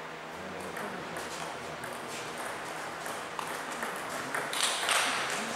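Table tennis rally: the ball clicking off the bats and the table in quick succession, the loudest hits a little before the end.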